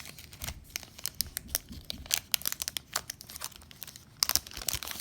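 Baseball card pack wrapper being torn open and crinkled: a rapid run of sharp crackles, loudest about four seconds in.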